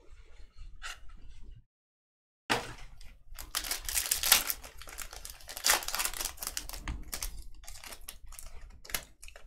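Wrapper of a 2022 Prism football card pack being crinkled and torn open, with the cards handled, close up. Dense rustling and clicking starts after a brief silence about two seconds in.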